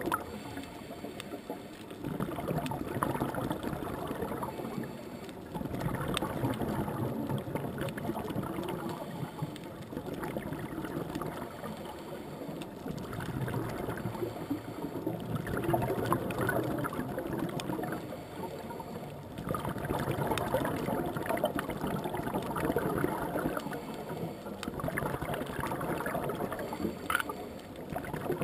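Scuba regulator breathing underwater: swells of exhaled bubbles lasting a few seconds, each followed by a short quieter gap while the diver inhales.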